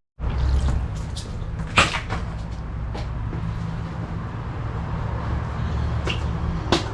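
Chevy 350 V8 idling steadily, with a few sharp clicks over it: the loudest about two seconds in, another at three seconds and one near the end.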